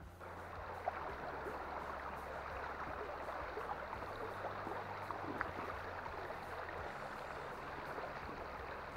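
River water running past in a steady rush, with a couple of faint ticks about a second in and again past the middle.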